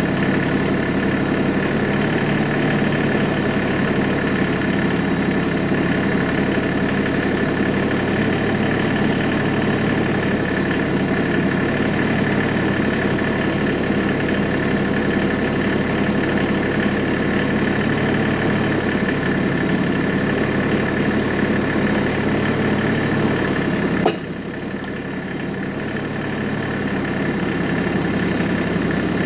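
Tractor engine running steadily at idle with a steady high whine over it. About 24 seconds in there is a sharp click, and the sound drops a little before building back up over a few seconds.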